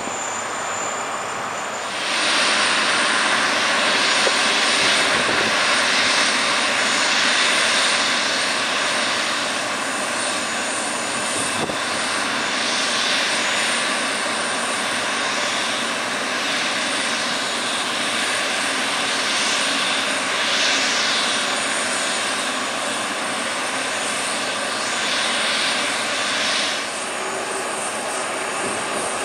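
Jet engines of a Boeing 777 airliner running at taxi power: a loud, steady jet hiss that swells and eases every few seconds. It sets in abruptly about two seconds in and drops back near the end.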